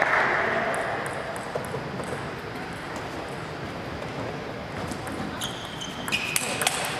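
Applause dies away in the first second. Then comes a table tennis rally, with a few sharp clicks of the celluloid-type ball off rubber paddles and the table, and a couple of short high squeaks of shoes on the court floor near the end.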